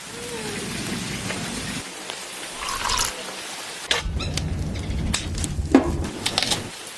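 Steady rain falling, with scattered sharp taps and knocks and two stretches of low rumble, the second ending shortly before the end.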